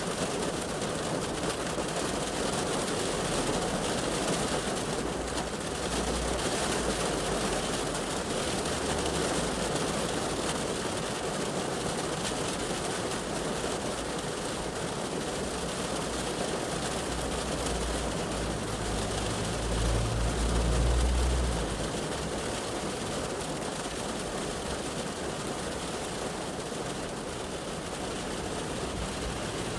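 Heavy shower rain falling on a car's roof and windows, heard from inside the cabin as a steady hiss. Traffic passes on the road outside; a heavy vehicle's low rumble swells about two-thirds of the way through and is the loudest moment.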